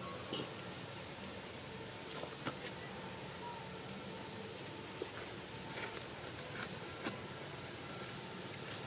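Steady high-pitched drone of insects, with a few faint clicks scattered through it.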